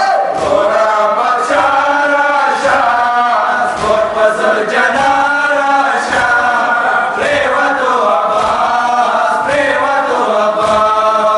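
A group of men chanting a Shia noha lament in unison, with hands striking chests (matam) in a steady rhythm under the singing.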